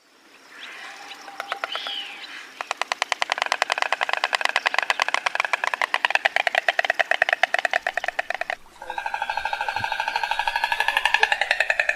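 Stork clattering its bill: a rapid, machine-gun-like run of sharp clicks that starts about two and a half seconds in and lasts about six seconds. A fainter, rougher stretch comes before it, and near nine seconds a more ringing, pulsed clatter takes over.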